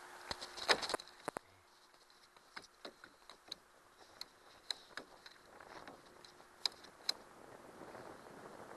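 Sharp clicks and light knocks as a freshly caught shad is handled on the floor of a small boat: a quick cluster in the first second or so, then scattered single taps.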